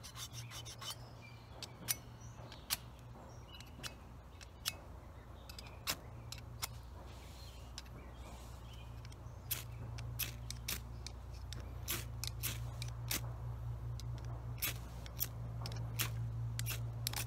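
Ferro rod scraped against the small striker notch of a folding survival shovel in short, irregular strikes, more frequent in the second half. The strikes are taking sparks off the rod.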